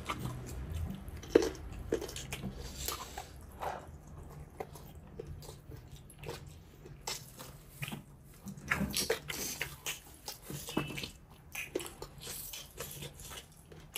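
Close-up chewing and mouth sounds of a person eating, with irregular small clicks and smacks.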